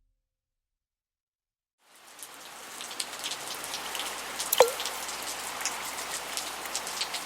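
Rain falls steadily after about two seconds of silence, fading in and building. Scattered drips tick through it, with one plinking water drop that falls in pitch midway.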